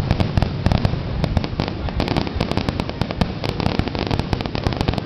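Aerial firework shells bursting in a rapid, near-continuous barrage of bangs, many a second and overlapping, the dense firing of a fireworks finale.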